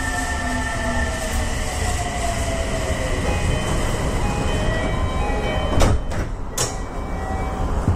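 An electric commuter train pulling out on the adjacent track, heard from the cab of a stopped train. Its traction motors whine in short tones that step from one pitch to another, over a steady low rumble, and its wheels give two sharp clacks over rail joints about six seconds in.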